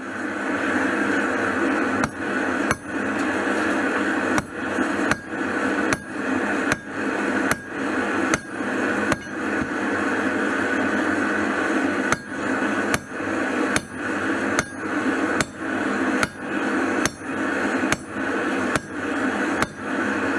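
Hammer blows on red-hot steel against a railroad-track anvil, about one strike a second with a short pause midway, over a steady rushing noise.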